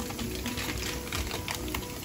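Peanuts and tempering spices (mustard seeds, cumin, chana and urad dal) frying in hot oil in an iron kadai, crackling with quick, irregular little pops.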